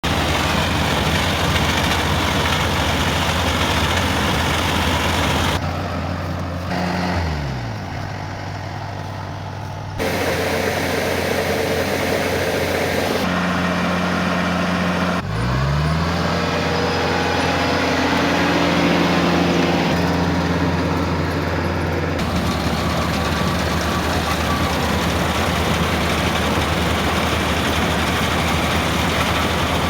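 Engine of a Kubota farm machine running steadily. Its pitch slides down about seven seconds in and climbs back up about fifteen seconds in, and the sound changes abruptly several times.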